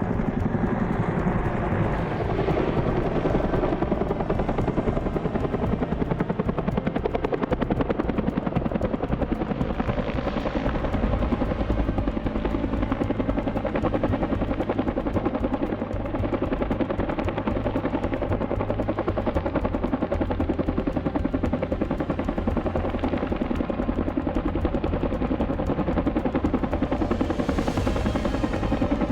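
Firefighting helicopter flying, its rotor beating in a rapid, steady pulse over the engine's drone, with a brief swell of hiss near the end.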